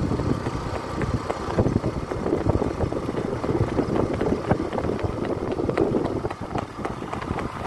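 Running footsteps on a road, an irregular string of thumps, over a steady low rumble of wind on the microphone.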